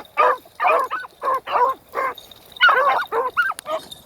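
Pack of beagles baying on a rabbit track: short, overlapping barks and bawls, about three a second, with a brief pause about two seconds in.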